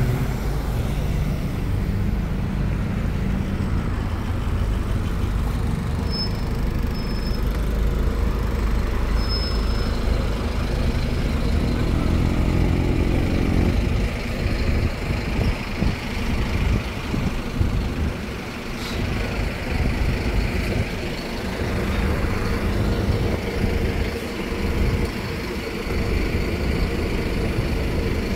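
Sightseeing bus's engine running in city traffic, with the engine pitch rising briefly about twelve seconds in.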